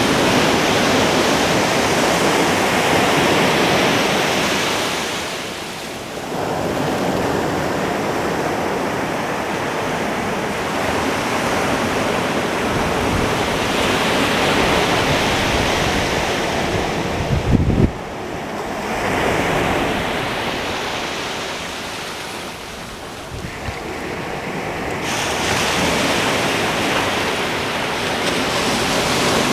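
Ocean surf breaking and washing up the beach, the rush of water swelling and fading in several long surges. A brief low thump of wind on the microphone about two-thirds of the way through.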